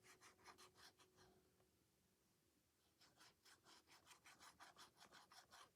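Faint, quick rubbing strokes of a paper page being smoothed down by hand onto a journal page, with a pause of about a second and a half midway.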